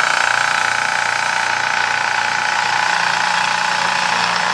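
Makita MAC320Q 3-gallon oil-free air compressor running steadily just after being switched on, its pump filling the tank. It makes an even hum with a steady whine over it.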